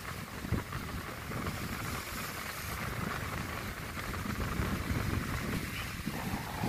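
Wind buffeting the microphone, a gusty low rumble, over the steady wash of small sea waves breaking on the shore.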